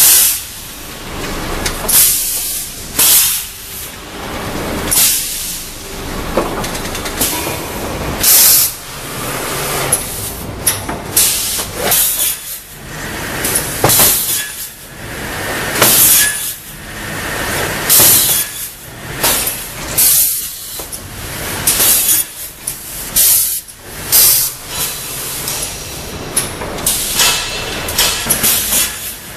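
Bottene Push 180 XL pusher-type board crosscut saw at work, feeding boards through on its roller and chain conveyors over a steady rumble and hiss. A short, loud, hissing burst comes every second or two as the saw makes its cuts.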